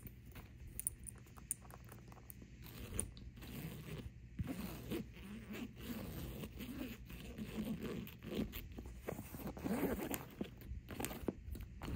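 Long fingernails scratching and tapping on a woven nylon bag and working its zipper and metal zipper pulls: a busy run of small clicks, scrapes and zipper rasps.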